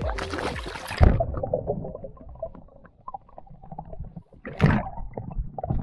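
Sea water splashing as a camera is dipped under the surface about a second in, followed by muffled underwater gurgling and bubbling. A brief louder rush of water comes about four and a half seconds in.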